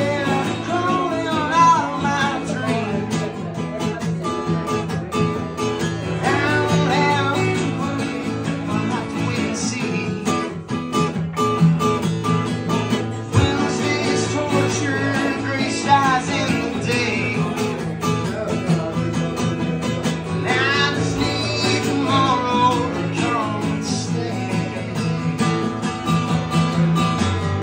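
Live song with two acoustic guitars playing together and a man singing in phrases over them.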